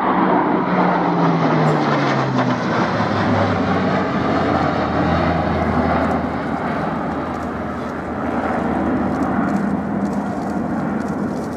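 Airbus A400M Atlas's four Europrop TP400-D6 turboprops and propellers at display power, a loud propeller drone. Its pitch falls over the first three or four seconds as the aircraft goes past, then holds steady as the sound slowly fades a little.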